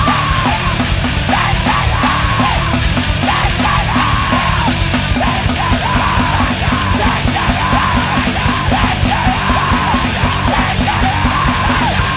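Screamo band playing at full tilt: distorted guitars and fast, driving drums under repeated screamed vocal phrases. The full band breaks off abruptly at the end, leaving a quieter guitar ringing.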